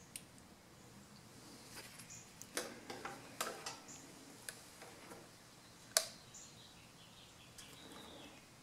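Faint scattered clicks and light knocks as a handheld digital multimeter and its test leads are handled, the sharpest about six seconds in. The mower engine is not running.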